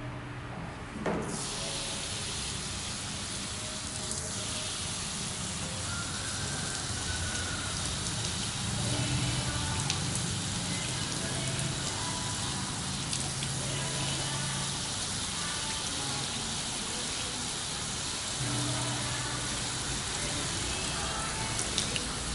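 Handheld shower sprayer running, water spraying onto a man's hair and splashing at a shampoo bed. The spray comes on suddenly about a second in and then runs as a steady hiss.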